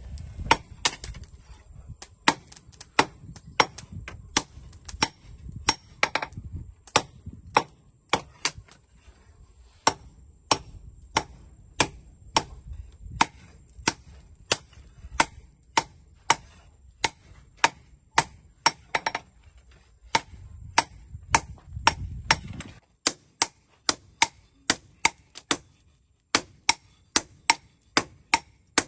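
Blacksmith's hammer striking steel on an anvil while forging a knife, in steady blows about two a second. A low rumble runs underneath and stops near the end.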